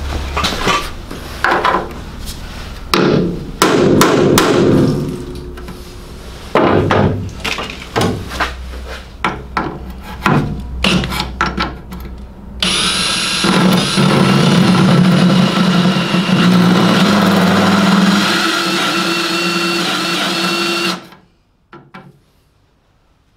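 A cordless drill drives a spot weld cutter into the Morris Minor's engine-bay sheet steel. It runs steadily with a whine and grinding for about eight seconds from about halfway through, then stops suddenly. Before that there is a string of sharp knocks and short bursts.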